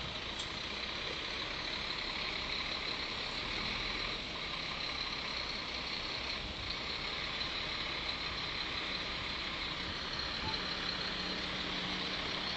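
Heavy prime-mover truck's diesel engine running steadily, with a steady high-pitched hiss over it.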